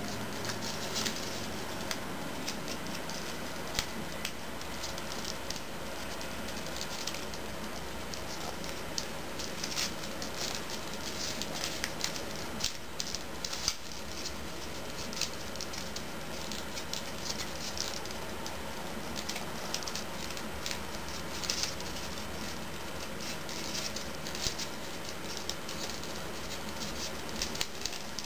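Origami paper crinkling and rustling as fingers fold and crease a small paper model, with irregular small crackles and taps throughout.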